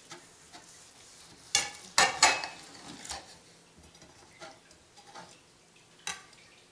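Kitchen knife slicing through a roasted pork loin, its blade scraping and clicking against a plate: a cluster of sharp scrapes about one and a half to two and a half seconds in, and another near the end.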